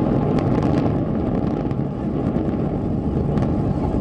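Continuous deep rumble of two concrete high-rise towers collapsing in a controlled explosive demolition, with a few sharp cracks through it.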